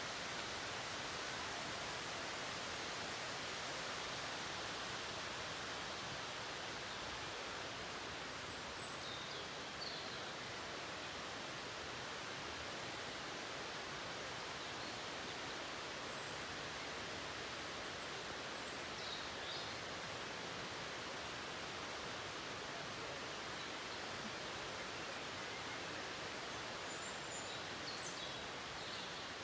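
Steady, unbroken rush of a waterfall, with a few faint high bird chirps about a third of the way in, about two-thirds in and near the end.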